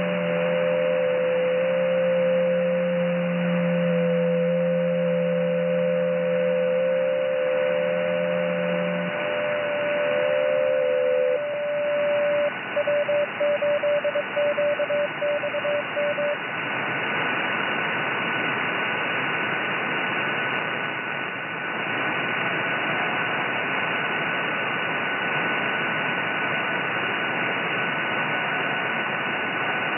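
Shortwave receiver audio in sideband mode: band hiss that stops sharply at the top, carrying steady WSJT-X digital-mode tones, one low and two mid-pitched, that stop one after another over the first dozen seconds. The last tone breaks up before it ends. About 16 seconds in the hiss grows louder as the receiver is retuned from the 20 m to the 30 m band, and one steady higher whistle remains.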